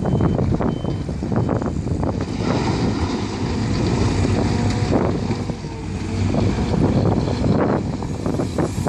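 Heavy diesel engines of a Caterpillar 345 hydraulic excavator and a Mercedes-Benz Actros four-axle dump truck running while rock is loaded, with repeated clatter and knocks of rock landing in the steel tipper body. A few short warning beeps near the start.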